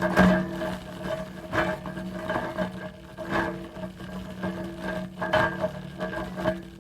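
Metal hand truck rolling, its wheels and frame rattling steadily, with repeated clunks at uneven intervals.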